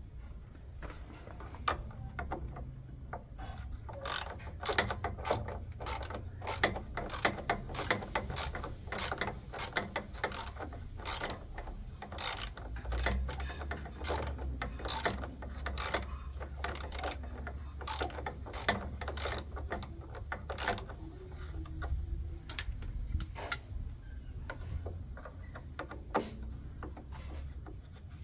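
Irregular mechanical clicking and clatter of tools and parts as a washing machine is taken apart, over a steady low rumble.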